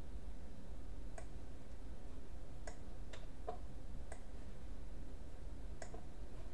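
Computer mouse buttons clicking, about six separate clicks spaced irregularly, over a steady low background hum.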